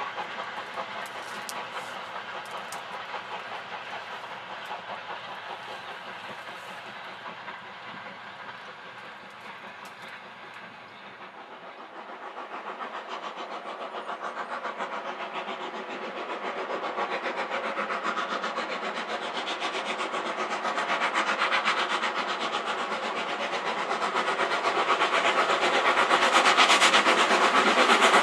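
Steam locomotives working trains, with their exhaust beats and wheels running on the rails. The sound eases off toward the middle, then grows steadily louder through the second half as a locomotive approaches.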